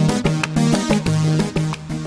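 Instrumental jingle music with a steady beat and a bass line.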